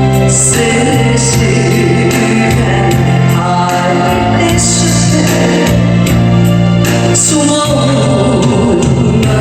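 Korean ballad played on a backing track, with a voice singing over sustained chords, a steady bass and a light regular beat.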